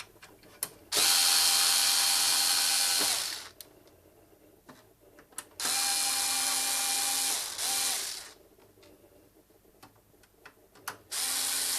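Bosch IXO cordless screwdriver running in steady bursts of a couple of seconds each, three times, backing out the case screws of a Synology DS1815+ NAS. The second run stops briefly and restarts, and there are faint clicks between the runs.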